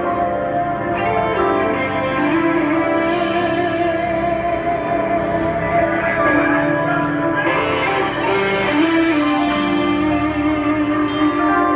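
Live band playing an instrumental groove on keyboard, electric guitar and drum kit, with cymbal strokes every second or so and no singing.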